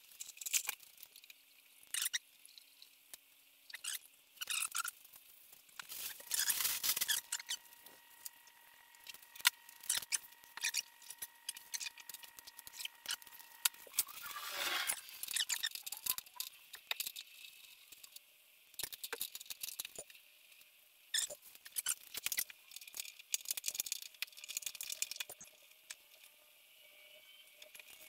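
Irregular clicks, clinks and rattles of hand tools and bumper bolts being handled during bumper removal, with a brief falling swish about halfway through.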